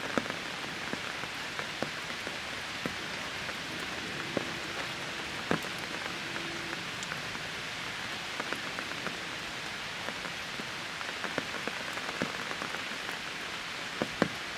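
Rain pattering on leaves: a steady hiss of rainfall with many scattered louder drop taps.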